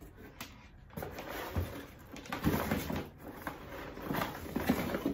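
Off-camera handling noise: irregular rustling and clatter of objects being handled, starting about a second in.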